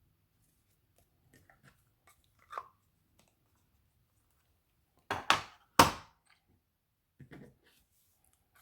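Paper scissors cutting through cardstock: three sharp, crunchy snips close together about five seconds in, with lighter paper handling before and a softer snip near the end.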